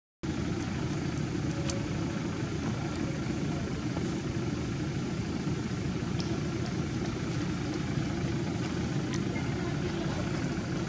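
Steady low outdoor background rumble, with a few faint ticks.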